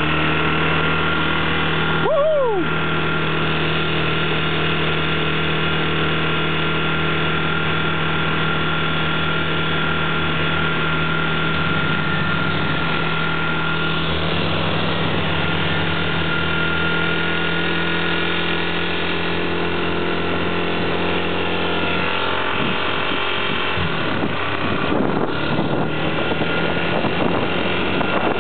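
Dirt bike's engine running steadily at cruising speed, heard from the handlebars while riding, under a constant rushing of wind and road noise.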